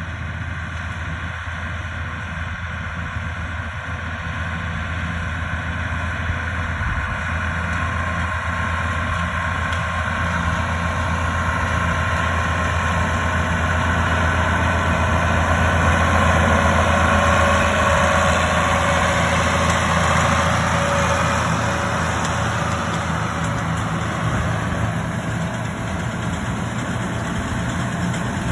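Classic Ford diesel tractor running steadily under load while driving a New Holland 644 round baler through hay windrows. The engine and baler grow louder as they approach, loudest about halfway through, then ease off a little as they pass close by.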